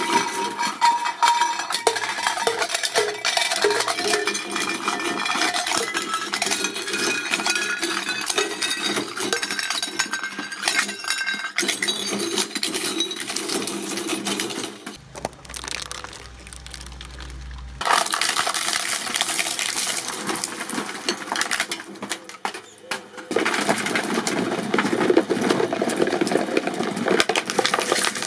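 Objects being crushed in a hydraulic press: dense crackling and clinking with short squeaks. About halfway through it drops briefly to a low hum before the crackling resumes.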